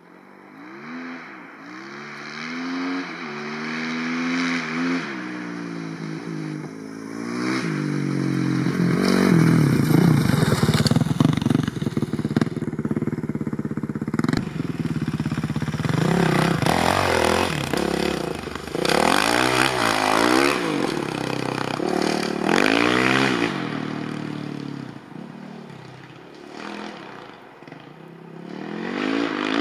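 Kawasaki KX450F's single-cylinder four-stroke engine being ridden hard, revving up and dropping back again and again, loudest about ten seconds in and easing off briefly near the end.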